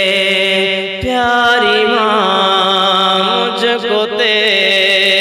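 A man singing an Urdu devotional kalam in naat style, drawing out long ornamented notes whose pitch winds up and down. A new phrase begins about a second in.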